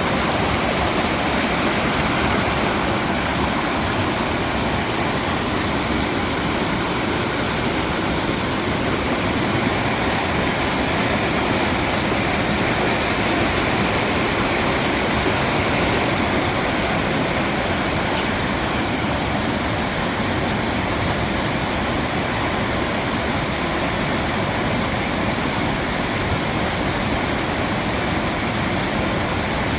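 Mountain stream rushing over rocks in a valley, a steady, dense rush of water.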